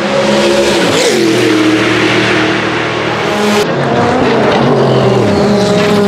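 Sauber Mercedes C11's twin-turbo Mercedes M119 V8 racing past at speed, its engine note rising and falling in pitch as it passes. About halfway through there is an abrupt jump in the sound, where the recording is cut to another pass.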